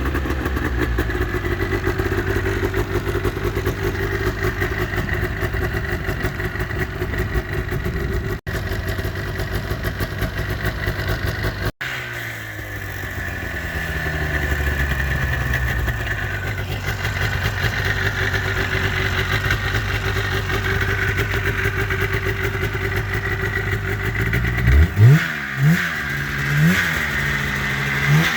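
A 1989 Yamaha Exciter 570 snowmobile's two-stroke engine idles steadily. Near the end the throttle is blipped several times in quick succession, each a short rising rev.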